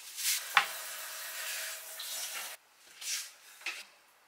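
Kitchen tap running as bell peppers are rinsed under it, with a sharp knock about half a second in. The water stops abruptly about two and a half seconds in, followed by a few short, soft handling noises.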